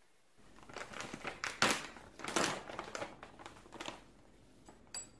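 Crinkly bag of almond flour rustling as it is handled, in irregular bursts for about three and a half seconds, then one short sharp click near the end.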